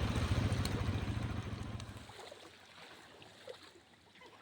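Low rumbling wind and rough sea water, loud at first and dropping off abruptly about two seconds in to a faint wash.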